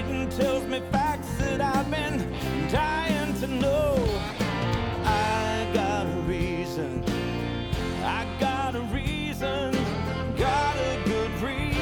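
Country-style song about reading: a sung melody over guitar and a steady beat.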